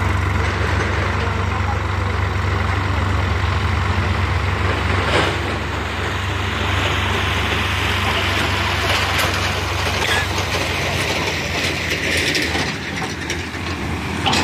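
Sonalika DI 50 tractor's diesel engine running steadily while its hydraulics raise the tipping trolley, with sand pouring off the tilted trolley bed. There is a short knock about five seconds in.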